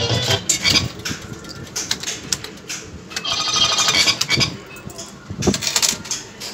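Fruit machine play: the machine's tune stops, then sharp clicks from its buttons and a short burst of chirpy electronic sound effects about three seconds in, with two more knocks near the end, against arcade background noise.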